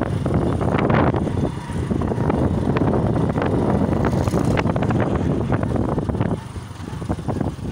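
Motorcycle ride: an engine running under heavy wind buffeting on the microphone, the noise dropping noticeably about six seconds in.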